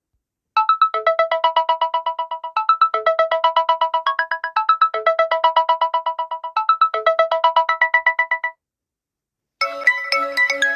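Samsung Galaxy A30 ringtone: a quick, evenly paced run of short bright notes in a melody that repeats about every two seconds. It stops about 8.5 seconds in, and after a second of silence a different, busier ringtone starts near the end.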